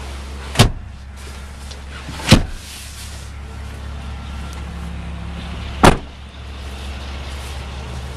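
Three sharp thumps, the middle one loudest, over a steady low hum from the idling gas engine of a 2015 Chevrolet Silverado 2500 HD, heard inside the cab.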